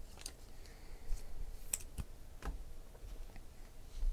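Glossy sports trading cards being handled, with a scattered series of light clicks and taps as the cards are picked up and moved.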